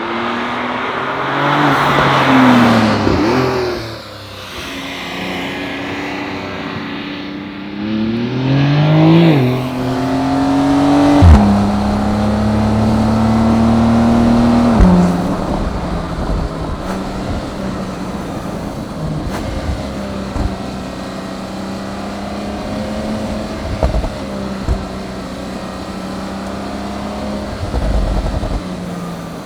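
Porsche 911 Turbo (992)'s twin-turbo flat-six revving up and down, then climbing in pitch again before dropping sharply on upshifts about eleven and fifteen seconds in. It then settles into a steady, lower cruise.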